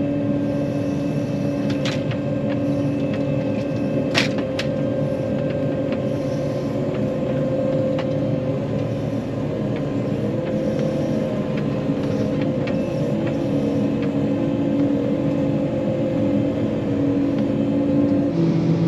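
John Deere 9500 combine's diesel engine running steadily under way, with a few sharp clicks about two and four seconds in. Near the end the steady tone shifts lower.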